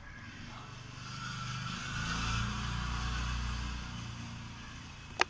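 A motor vehicle passing by, its engine hum swelling about a second in and fading away after about four seconds. There is one sharp click near the end.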